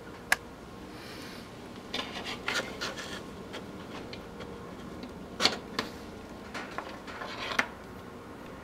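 Hands handling a bundle of jumper wires and small plastic header connectors: the wires rub and rustle, with several sharp clicks, the loudest about five and a half seconds in.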